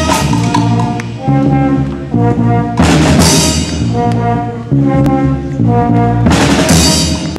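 Brass-led instrumental intro music, held notes with two loud crashes, about three seconds in and near the end; it stops abruptly.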